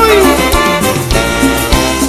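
Live cumbia band playing an instrumental passage with a steady beat.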